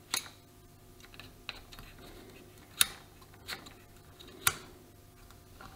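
Green PLA 3D-printed drill-bit holder's knurled cap being turned by hand, clicking into its ball-detent positions: about five sharp clicks at uneven intervals.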